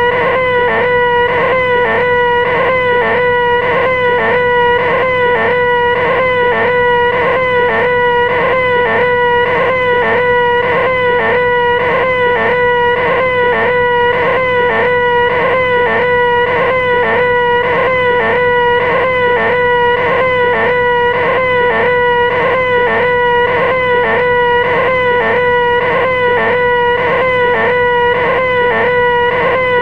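The "most annoying sound in the world": a man's loud, nasal, high-pitched "eeeeh" scream, held at one pitch and looped without a break, wavering in a regular pulse.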